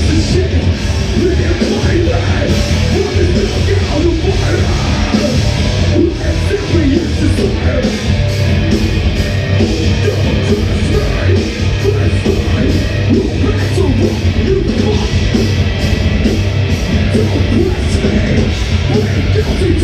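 A rock band playing loud, heavy music live, with a steady drum beat.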